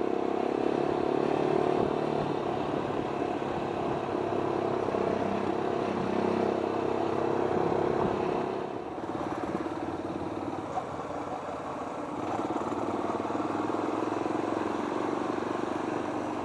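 Motorcycle engine with an Akrapovic aftermarket muffler running steadily while riding, easing off about eight seconds in and then picking up again.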